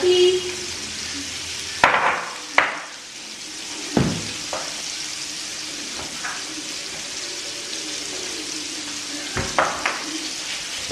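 Chicken pieces searing in butter and oil in a frying pan, a steady sizzle, with a few sharp knocks at about 2, 4 and 10 seconds.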